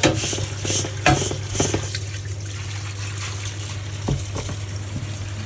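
Water running and splashing as a refrigerator's condenser coil is washed down, over a steady low hum. A few knocks come in the first two seconds.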